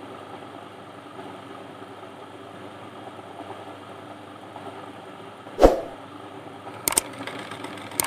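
Sewing machine running steadily while stitching a zip. About five and a half seconds in, a loud sudden whoosh, then two sharp clicks about a second apart, from a subscribe-button animation.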